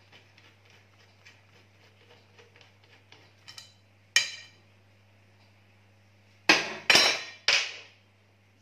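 Light, quick clicking while a mower blade bolt is unscrewed by hand. This is followed by four loud ringing metal clanks, one about four seconds in and three in quick succession near the end, as the bolt, washer and steel rotary mower blade are set down on a steel bench top.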